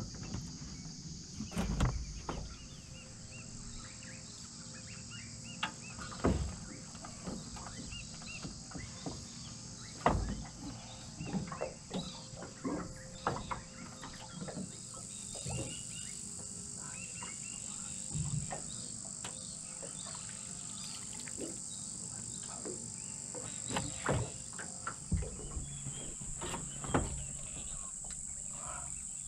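Steady high-pitched insect chorus that shifts slightly higher about halfway through, with scattered close clicks and knocks over it.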